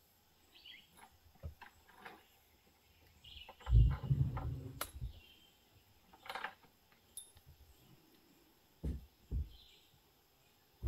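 Outdoor yard ambience with faint, scattered bird chirps, broken by a few low thumps and rustles. The loudest of these comes about four seconds in, and a pair follows near the end.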